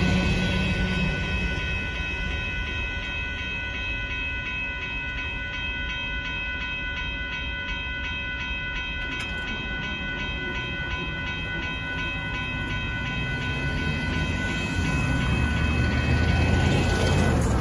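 Railroad crossing warning bell ringing steadily, a high, many-toned clang, while the rumble of the departing hopper train fades in the first couple of seconds. The bell cuts off near the end as the crossing gates rise, and passing cars then move in.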